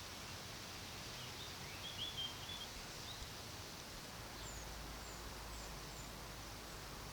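Faint outdoor ambience with a few distant bird chirps: a short warbling phrase about two seconds in, then four quick high falling notes later on.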